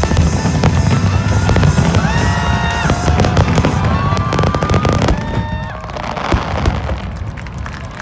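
Fireworks show: dense crackling and booming of bursting shells over music, with held tones in the middle, thinning out after about five or six seconds.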